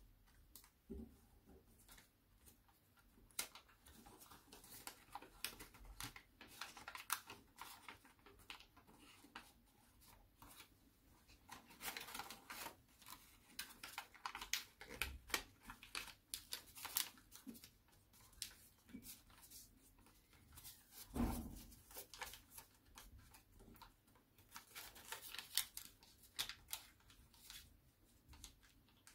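A sheet of paper being folded and creased by hand into an origami model: faint rustling and crisp crackles in irregular clusters, with one dull bump about two-thirds of the way through.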